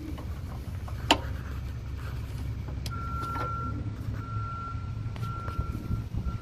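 A steady low rumble with a sharp click about a second in, then an intermittent high-pitched beeping tone, sounding in stretches of about half a second to a second from about three seconds in.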